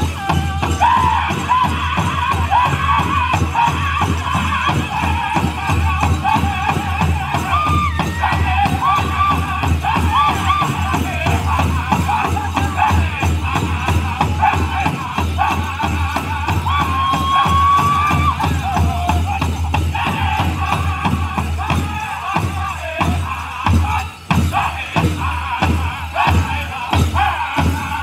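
A powwow drum group sings a chicken dance song in high, wavering voices over a fast, steady beat on the big drum. In the last several seconds the singing thins out and the drumbeat stands out more clearly.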